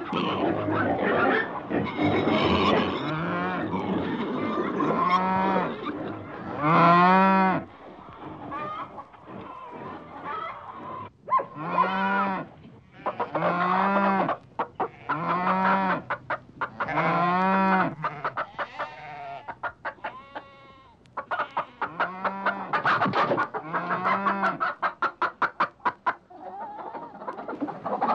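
Farm animal calls: a jumble of fowl clucking at first, then about a dozen separate drawn-out pitched calls, bleats of goats or sheep.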